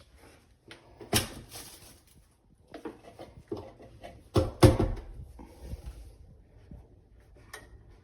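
A series of handling knocks and clunks, like a small door or objects being moved and set down, the loudest a pair of knocks about four and a half seconds in.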